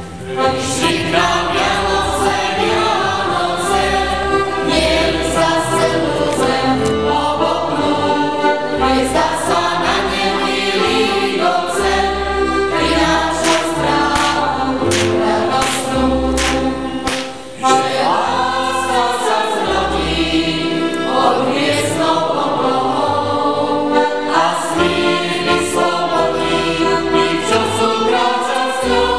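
A group of women's voices singing a Slovak folk song together in several voices. There is a brief pause about halfway through.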